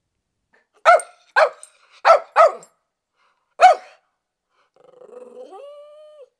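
A small dog barking five short, sharp times, four in quick succession and one a little later, then making a quieter, drawn-out whining vocal sound that steps up in pitch near the end.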